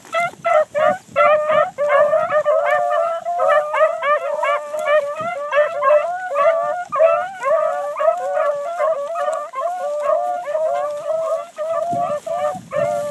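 A pack of hounds baying together, many voices overlapping in an unbroken chorus of yelps and drawn-out howls.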